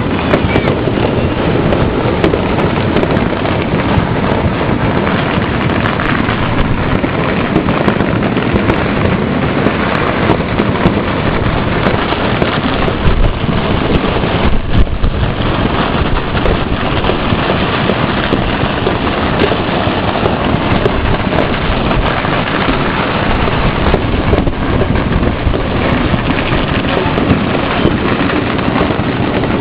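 Firecrackers and fireworks going off all across a city, countless bangs and pops blurring into one loud, continuous crackle.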